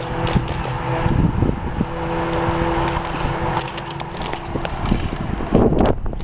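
Rustling and knocking from handling and wind on a body-worn camera, with a steady two-note tone held for about a second at the start and again for nearly three seconds from about two seconds in.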